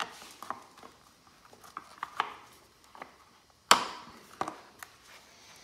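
Scattered sharp clicks and knocks of hard plastic parts and a connector being handled and pried on a 2019 Honda Grom's fuel pump cover, with one louder knock a bit past the middle.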